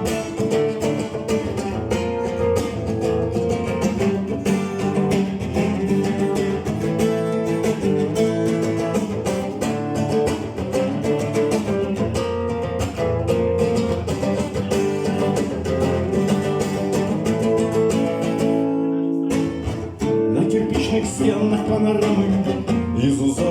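Instrumental break in a song: acoustic guitar strummed steadily under sustained chords, with a brief drop in the music about 19 seconds in.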